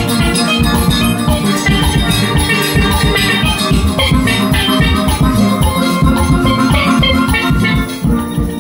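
Steel band playing: steelpans carrying the melody over drums and percussion, the music dying away in the last second.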